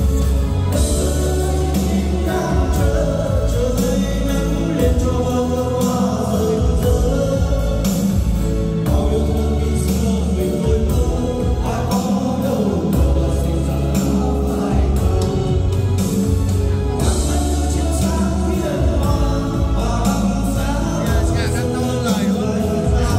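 Music with a singing voice over heavy, sustained bass.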